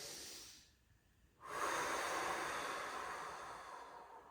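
A person breathing deeply and audibly. A slow inhale trails off, there is a short pause, then a long exhale through the mouth starts about a second and a half in and slowly fades.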